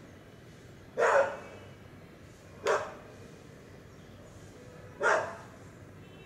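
Three loud, short animal calls: about a second in, near three seconds and at five seconds, each fading quickly, over a faint steady background.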